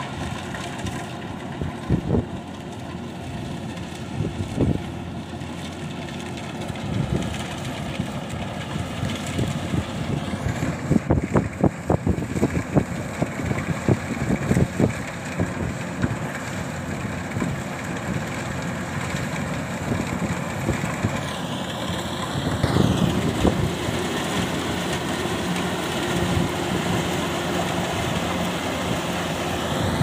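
Kubota DC-105X rice combine harvester running steadily as it cuts, its diesel engine and threshing machinery making a continuous mechanical noise. A cluster of knocks comes around the middle, and the tone shifts and sweeps twice.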